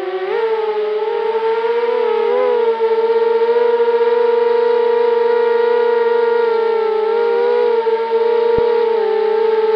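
A 250-size quadcopter's brushless motors and propellers whine as it climbs. The pitch wavers with the throttle over the first few seconds, then holds steady.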